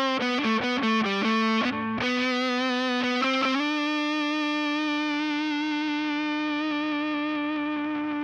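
Electric guitar with overdrive, played through a Seymour Duncan Antiquity bridge humbucker: a quick run of notes, then one long note held for several seconds and cut off.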